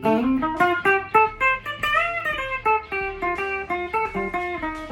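Flight Centurion electric tenor ukulele with steel strings, plugged in and picked with a plectrum. It plays a quick single-note melodic line, about three notes a second, with a bent note about two seconds in.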